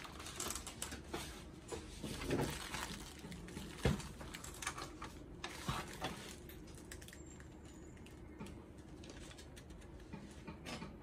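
Handling noise from the plastic housing of a Zebra ZC100/300 series card printer being turned over and set down: scattered clicks and knocks, the loudest about four seconds in, with light rustling of plastic wrap. The handling sounds thin out after about six seconds.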